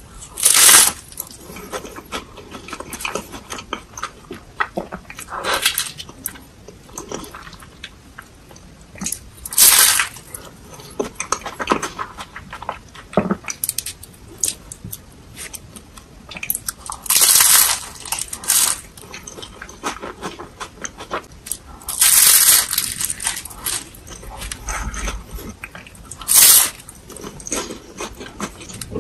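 A person biting and chewing a deep-fried crispy cone filled with cheese ice cream. There are about six loud crunching bites, with crackly chewing between them.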